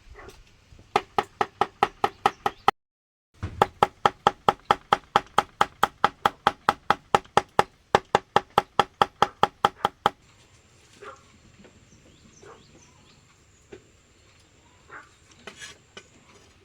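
Rapid, even chopping knocks, about five a second, each with a ringing tone, in two runs broken by a cut. They stop about ten seconds in, leaving faint scattered sounds.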